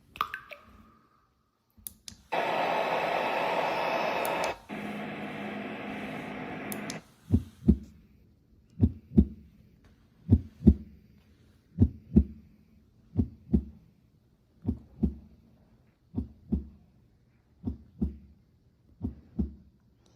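Zealot Z6 white noise machine playing through its speaker: a short beep, then a steady hiss of noise that drops in level about halfway through and stops at around seven seconds. It then switches to its recorded heartbeat sound, a double thump repeating about every second and a half.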